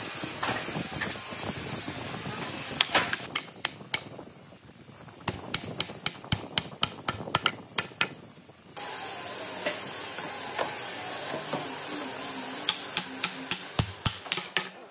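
A glued wooden leg being tapped down into a mortise in a solid tree-stump slab: a run of about a dozen sharp knocks, three or four a second, in the middle. Before and after them a steady hiss runs.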